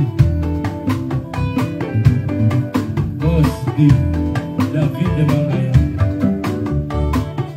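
Live band music with guitar and drums keeping a steady, dancing beat, and a singer's voice on the microphone at times.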